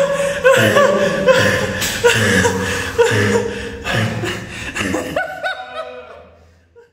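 A person laughing in a long run of chuckles and snickers that tails off about six seconds in.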